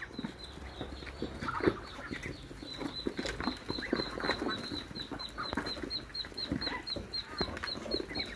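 Poultry feeding: chickens clucking amid many short pecking and scuffling sounds as a mixed flock of Muscovy ducks, turkeys and chickens eats banana from a box. A faint high chirp repeats about four times a second from a few seconds in.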